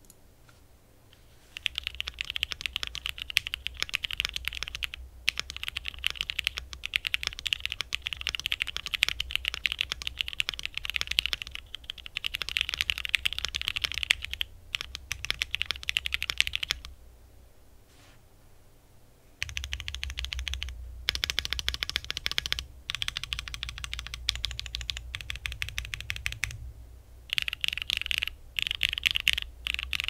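Typing on a Bakeneko60 mechanical keyboard with lubed Hyperglide Black linear switches, an aluminium plate and thick dye-sublimated PBT Cherry-profile keycaps: fast, steady key strokes. The typing stops for about two seconds some seventeen seconds in, resumes, and ends in two short bursts.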